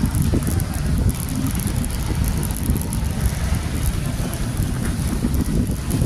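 Wind buffeting the microphone while riding along a wet street: a steady, uneven low rumble with tyre and traffic hiss over it.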